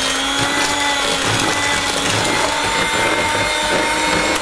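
Electric hand mixer running at a steady speed with a steady whine, its twin wire beaters whisking an egg into creamed margarine and sugar for cake batter.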